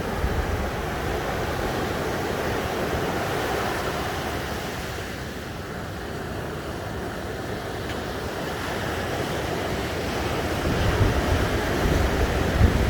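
Ocean surf washing onto a sandy beach as a steady rush, easing a little in the middle and building again near the end, with a low wind rumble on the microphone.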